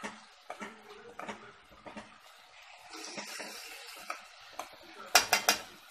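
A spoon stirring onions cooking down for tfaya in a stainless steel pot: light scraping and small knocks, a soft sizzle in the middle, then a quick run of sharp clinks of the spoon against the pot about five seconds in.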